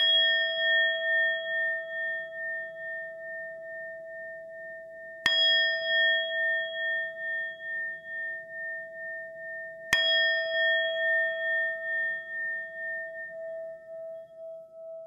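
A bell-like chime struck three times, about five seconds apart, each stroke ringing on long with a slow wobble as it fades.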